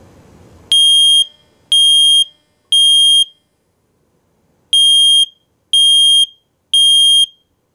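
Lifesaver model 1275 smoke detector sounding its test alarm: loud, high-pitched beeps in the temporal-three pattern, three half-second beeps about a second apart, a pause of about a second and a half, then three more.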